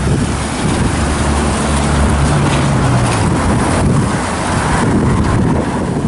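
Strong wind gusting against the microphone: a loud, rumbling noise with a low hum for a second or so in the middle.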